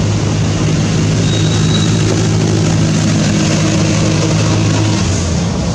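An engine running close by, a steady low hum under a broad hiss. The hum drops away about five seconds in.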